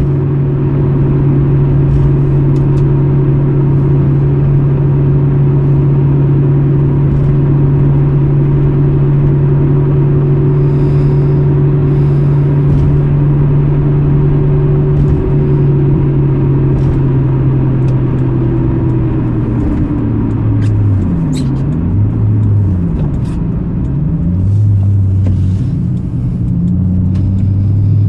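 Toyota Supra's twin-turbo 2JZ-GTE inline-six heard from inside the cabin, running at a steady engine note while cruising. About two thirds of the way through, the revs drop and climb again several times as the driver slows and changes gear.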